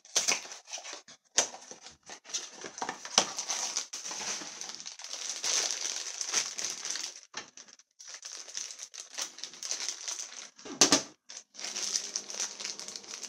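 The plastic wrapper of a small mystery-figure blind bag crinkling and crackling as it is squeezed and torn open, with one sharper, louder crackle near the end.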